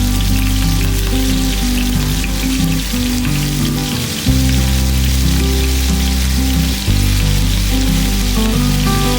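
Background music with a steady bass line over a continuous hiss of food frying in oil.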